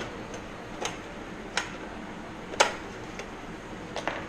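Irregular light clicks and taps of aluminium sheet-metal kit-plane parts being handled and fitted, with the sharpest knock about two and a half seconds in.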